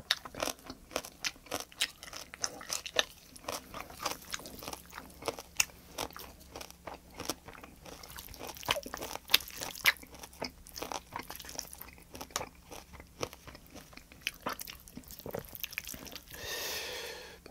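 Close-miked chewing of tomato spaghetti and green onion kimchi: a dense, irregular run of sharp clicks and crunches. A brief rushing noise about a second before the end.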